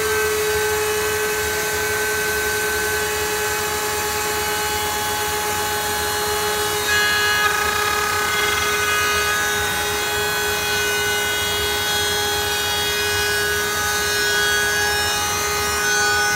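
Table-mounted router spinning a bullnose bit at full speed with a steady high whine. From about seven seconds in, an MDF blank is fed past the bit, and the sound of the cut adds higher overtones as the bullnose profile is routed.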